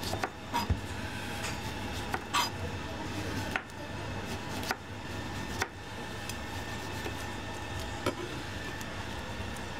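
Chef's knife slicing a lemon on a plastic cutting board, the blade knocking on the board in single, unevenly spaced strokes, about seven in all. A steady low hum runs underneath.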